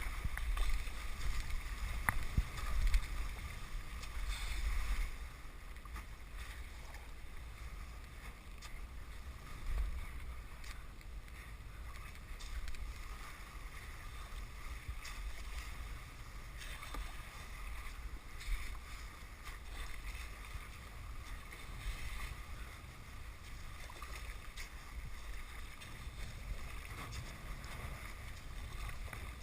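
Thin lake ice being pushed through by a kayak, breaking and tinkling against the hull: a continuous glassy, crystal-like jingle of many small clicks. Low wind rumble on the microphone, strongest in the first few seconds.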